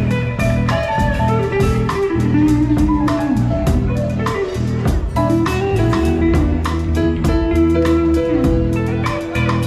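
Live band playing guitar-led music with a steady beat, during a sound check.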